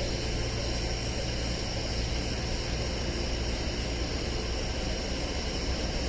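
Steady low hum under an even hiss from a Gotemba Line train standing at the station.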